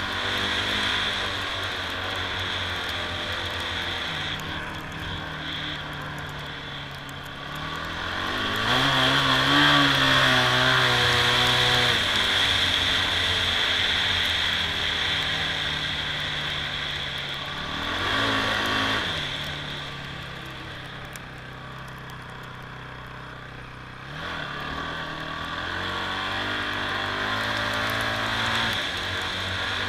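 Honda TRX450R ATV's single-cylinder four-stroke engine running under way. It revs up about eight seconds in and holds there for a few seconds, then eases off. It revs briefly again a little past halfway and picks up once more near the end.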